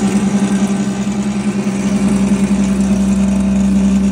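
Electric milk powder grinding machine running with a steady hum while being fed dry milk powder through its hopper.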